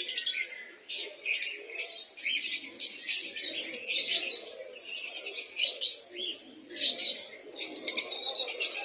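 Many small caged birds chirping and twittering together in rapid, overlapping bursts with short pauses between them, over a lower steady murmur.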